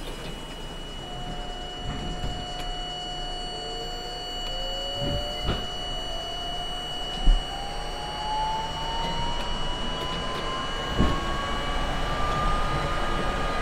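R32 subway car's traction motors whining, the pitch rising steadily as the train gathers speed, over a steady running rumble with a steady high tone above. A few low thuds break in, the loudest about seven seconds in.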